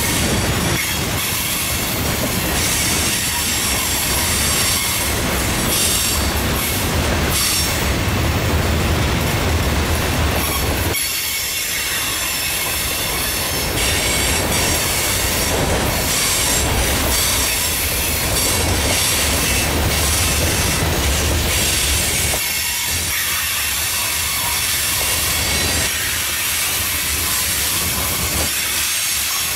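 Freight cars of a mixed freight train rolling past close by: a steady rumble of steel wheels on the rails, with a high wheel squeal and hiss over it.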